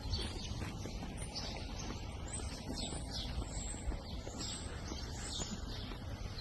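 Small birds chirping repeatedly in short high calls, over a steady low outdoor rumble.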